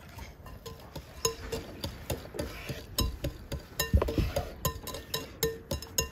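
Wire whisk beating in a bowl: quick, irregular metallic clinks with a light ring, starting about a second in, along with a few duller knocks of a knife cutting through dough onto a wooden board.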